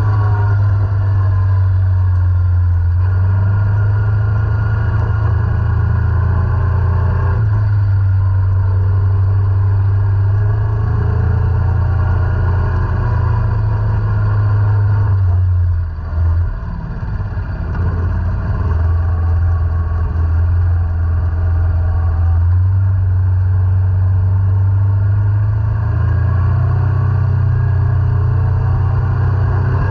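ATV engine running under way on a dirt trail: a steady low drone whose pitch rises and falls with the throttle. It eases off briefly about halfway through, then picks up again.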